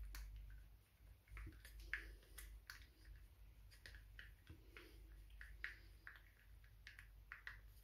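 Paint being mixed in a cup: faint, irregular clicks and taps of the stirrer against the container, over a low steady hum.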